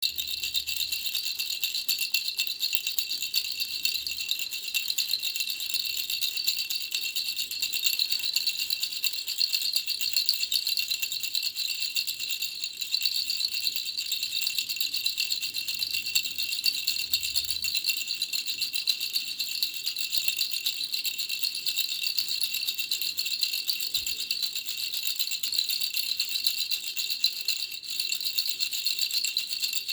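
Baby rattle shaken without a break, a fast, dense, high rattling.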